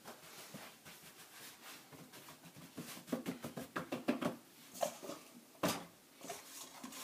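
Floured hands kneading and slapping sticky Irish soda bread dough: a run of short slaps and taps, busiest from about three to four and a half seconds in, with one sharper slap near six seconds.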